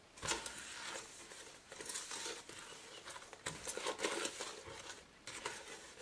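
A spoon stirring a dry mix of masa harina, sugar and cornstarch in a stainless steel pot. It makes irregular soft scraping and rustling strokes as the powder is pushed around and lumps are broken up.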